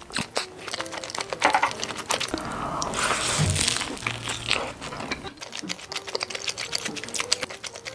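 Close-miked eating sounds from rice cakes: quick wet clicks of chewing and handling, with a rustle of crinkling packaging a few seconds in, over soft background music.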